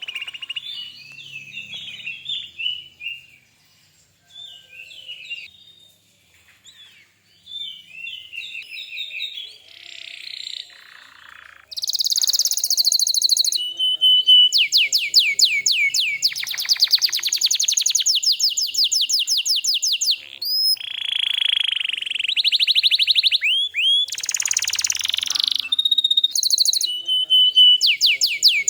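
Domestic canary singing. Soft, scattered twittering gives way about twelve seconds in to loud song: fast repeated trills broken by rising whistled glides and held notes.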